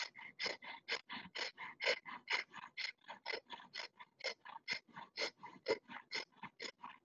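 A woman doing breath of fire: rapid, rhythmic, forceful exhales through the nose, about four a second, steady and even.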